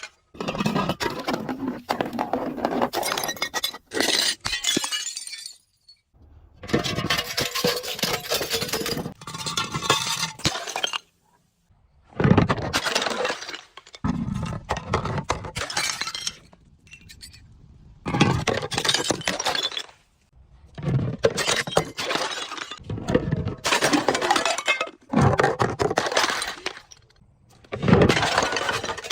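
Glass bottles breaking and crunching as they are crushed, with glassy clinks. The sound comes as a dozen or so separate takes of a couple of seconds each, split by brief silences.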